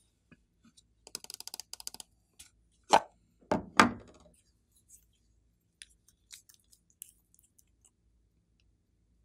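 Hands handling objects on a tabletop: a quick run of small clicks, then three loud knocks close together about three to four seconds in, then scattered light clicks as a glass nail polish bottle is opened and its brush cap handled.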